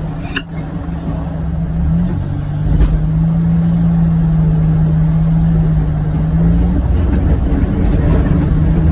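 John Deere Gator UVX 835M utility vehicle running steadily under load while plowing snow, with a low steady drone. About two seconds in, a brief high-pitched squeal falls in pitch.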